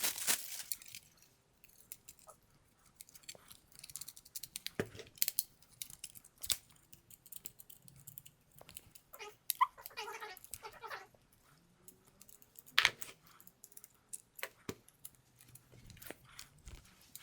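Light stand being handled and worked at: scattered clicks, knocks and scrapes as its telescoping sections and locks are fiddled with, the parts stiff and really tight.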